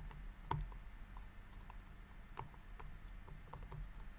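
Faint scattered clicks and taps of a plastic figure being fitted onto its display base, its feet pushed onto the base's pins. The clearest click comes about half a second in.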